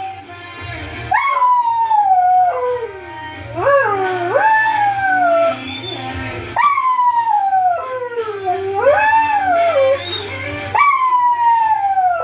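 Belgian Shepherd (Groenendael) dog howling along to a song: a run of about six long howls, each rising quickly and then sliding down in pitch.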